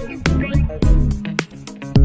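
Instrumental background music with a steady beat: a deep bass hit about twice a second under pitched instrument notes.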